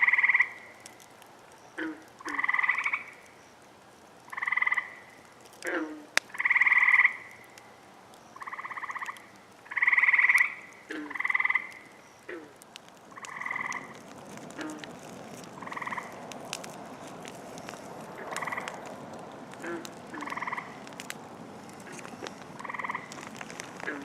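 Frogs calling at a pond at night: one close frog gives a buzzy trill about half a second long every one to two seconds, with quick falling chirps between some calls. The trills grow fainter about halfway through, over a steady background chorus.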